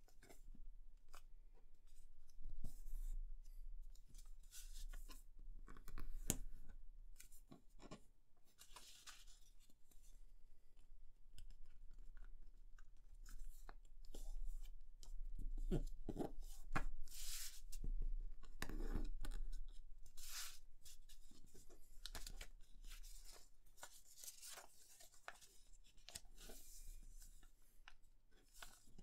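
A sheet of grid paper being folded and creased by hand on a cutting mat: irregular rustles and crisp swipes as fingers press and run along the folds.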